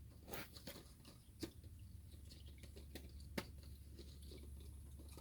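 A few faint, sharp clicks and knocks of small parts or tools being handled, over a low steady hum. The two loudest come about a second and a half and three and a half seconds in.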